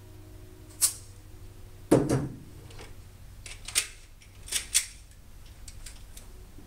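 Handgun being handled, giving a series of sharp metallic clicks and clacks, about five in all. The loudest, about two seconds in, has a short low thud.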